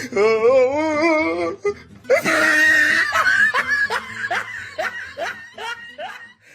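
Loud human laughter: a wavering, shaky laugh for about a second and a half, then a long run of laughing with repeated falling "ha" sounds that fades near the end.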